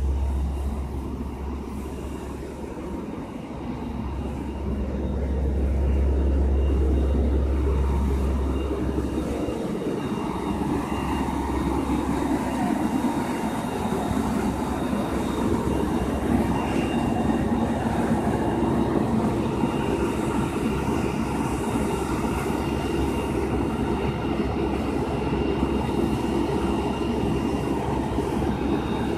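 Ferrara pumper fire engine's diesel engine running steadily, a heavy drone with several steady whining tones over it. For the first ten seconds a deep low rumble dominates; after that the engine drone comes up fuller.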